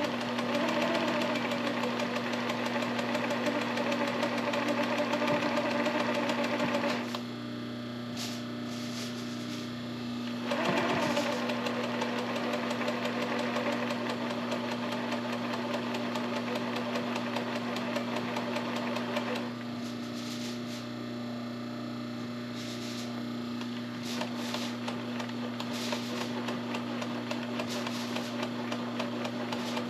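Table-mounted sewing machine stitching stretchy fabric, running fast in three long spells with two short stops between them, the first about seven seconds in and the second about a third of the way from the end. A steady low hum continues underneath, with a few light clicks during the stops.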